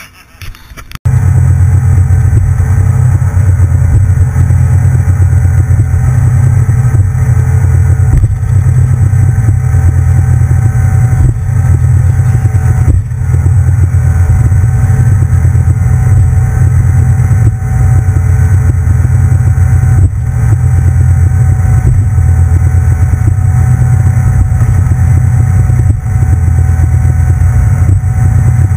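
Cabin cruiser's engine running steadily under way: a loud, even low drone heard inside the enclosed cockpit, starting abruptly about a second in.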